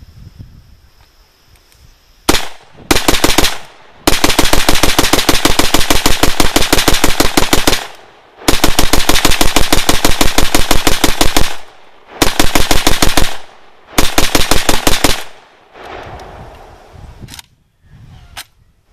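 Romanian-built M+M M10 AK-47-pattern rifle firing 7.62x39 rounds in rapid strings of shots. A single shot comes about two seconds in, then a short burst, then four long strings with brief gaps, the firing stopping about fifteen seconds in. A few faint clicks follow near the end.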